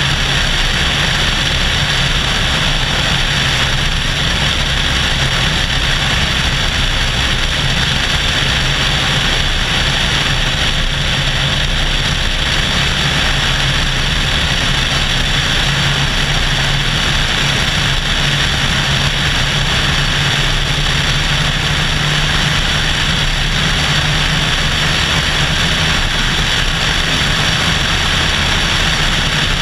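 Cessna 172SP's four-cylinder Lycoming engine and propeller running steadily in flight, heard through a camera mounted outside the airframe, with the rush of airflow over it.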